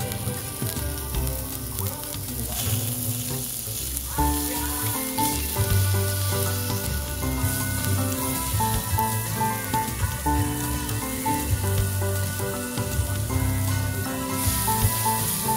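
Pork slices sizzling on a hot moo kra ta dome grill pan, under background music with a steady bass line and a repeated high note that comes in about four seconds in.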